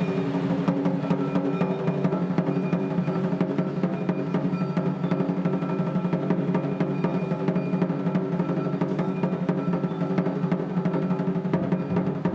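Japanese taiko drums (wadaiko) played by an ensemble in fast, dense, continuous strokes.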